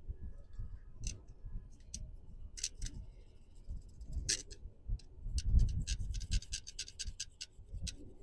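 Long bristle brush scrubbing the timing chain tensioner inside a 5.7L Toyota V8 through the oil filler opening: irregular scratching and clicking strokes, quickening in the second half, with dull knocks of the brush handle against the engine.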